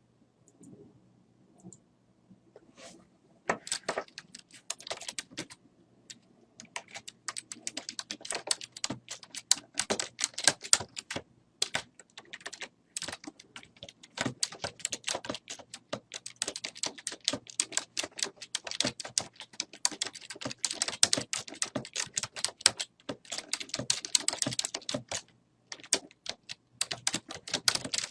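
Typing on a computer keyboard: rapid, irregular key clicks that start about three and a half seconds in and go on with short pauses, after a few faint clicks at the start.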